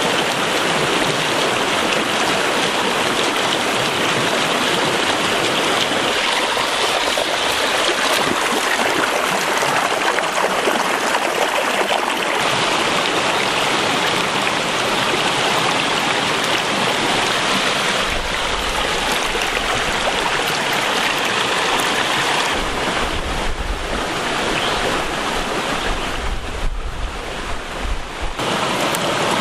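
Steady rush of flowing water. A low rumble comes and goes in the second half.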